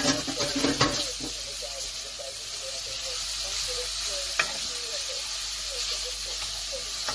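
Chopped onion and garlic sizzling in olive oil in a non-stick frying pan with a steady hiss, stirred with a wooden spoon. The spoon knocks against the pan several times in the first second and once more about four seconds in.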